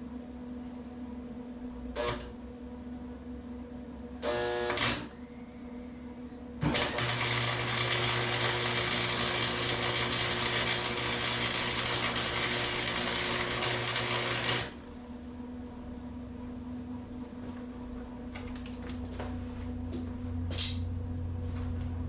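Electric arc welder running one continuous weld of about eight seconds on a metal console piece, a steady crackling buzz that stops sharply. Two brief bursts come before it, like short tacks.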